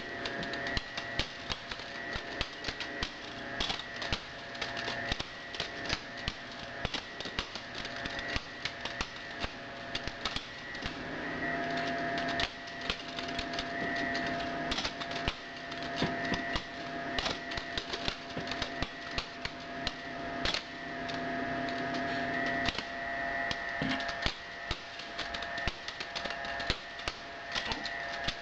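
Spyderco Szabofly balisong being flipped: rapid, irregular clicks and clacks of the handles swinging and knocking together, with a steady faint background tone.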